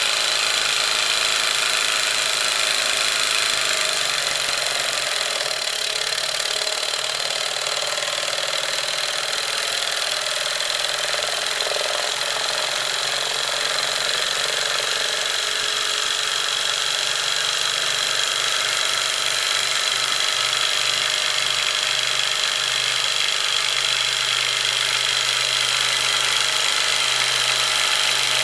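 Small Stirling hot-air engine built from a computer hard drive, running steadily on its burner flame with its platter flywheel spinning: an even mechanical whir.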